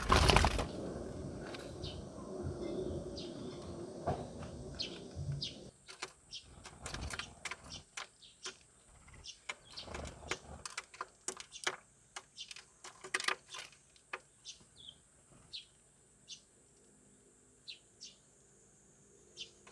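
Eurasian tree sparrows giving short, sharp chirps and clicks at a window-sill feeder, many at first and thinning out toward the end. A short loud rush of noise opens it, and a low steady background noise drops away about six seconds in.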